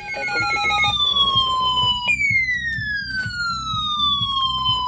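Weather radio alert tones: a short run of beeps, then an electronic siren tone that falls in pitch twice, each sweep lasting about two seconds, over low radio static. Near the end a steady alert tone begins, the tone that announces a warning broadcast.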